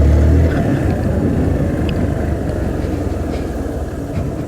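Hero Xpulse 200T's single-cylinder engine running on a rough dirt track, with a dense rumble of wind and riding noise on the microphone. A strong low engine note drops away about half a second in, as the throttle eases.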